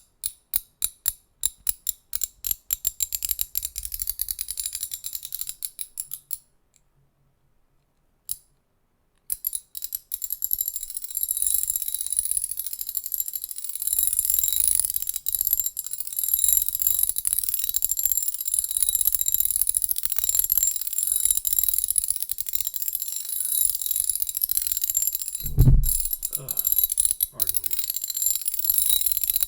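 A ratchet clicking. Separate clicks speed up over the first few seconds, then a pause of about three seconds with a single click, then fast, continuous ratcheting, with a low thump near the end.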